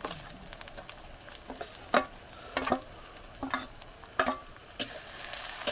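A spoon stirring frying onions in a pan, scraping and knocking against the pan every second or so over a light sizzle.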